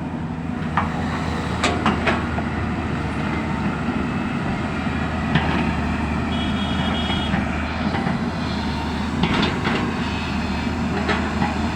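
Diesel engine of an earthmoving machine running steadily, with sharp clanks and knocks every few seconds as it works the ground.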